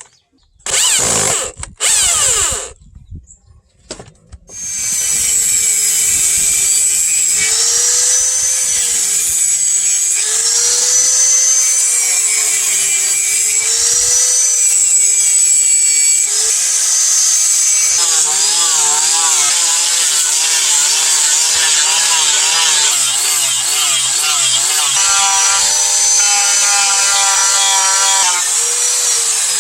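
A power tool working on the knife: several short bursts, then running continuously from about four seconds in, its pitch wavering up and down as it is pressed against the work.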